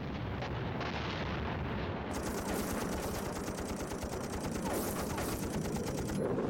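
Rapid, continuous machine-gun fire.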